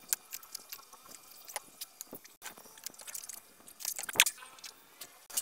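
Irregular light clicks and rattles from hands handling the mainboard and cable connectors of an opened Sony 43W800C LED TV, with a louder cluster of clicks about four seconds in.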